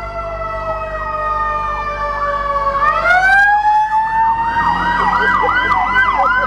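Vehicle-mounted air train horn blaring a held multi-note chord. Its pitch sags slowly for nearly three seconds, then swings back up and holds steady. In the second half a fast, repeating rising-and-falling wail sounds along with it.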